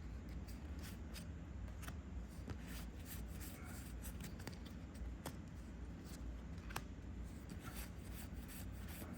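Trading cards being flipped and slid through by hand: faint, scattered clicks and light rubbing of card against card over a steady low room hum.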